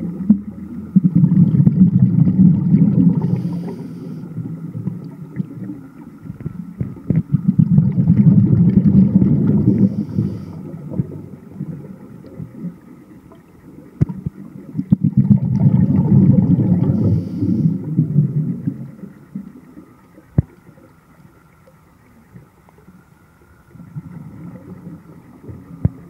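Scuba regulator breathing underwater: three long rushes of exhaled bubbles, about seven seconds apart, each with a brief high hiss near its end.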